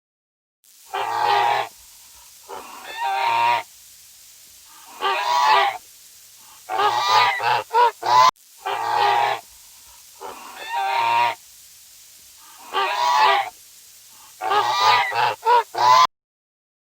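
An animal calling: a series of loud, harsh pitched calls, some single and some in quick runs, the same sequence playing through twice.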